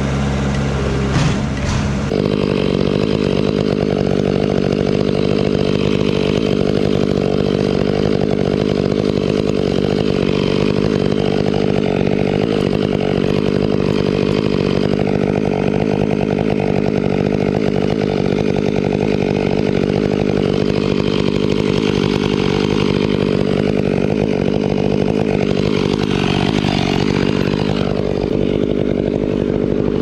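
A chainsaw, the Stihl 500i, cutting through a thick cedar trunk at full throttle, its pitch sagging and recovering a few times as the bar loads in the cut. For the first two seconds a different engine is running before the saw takes over.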